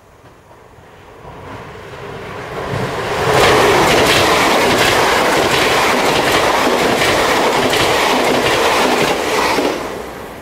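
Double-deck electric passenger train approaching and passing close at speed. The wheels clatter rapidly over the rail joints for about six seconds, and the noise falls away quickly as the last car goes by, near the end.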